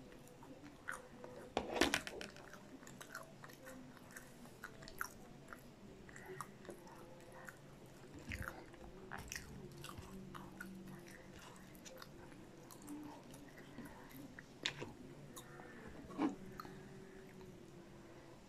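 Close-miked eating sounds: chewing and small crunches of fried popcorn chicken and cheese-sauced potato wedges, with light clicks and rustles of fingers picking at the pieces on a plate. A louder cluster of knocks comes about two seconds in.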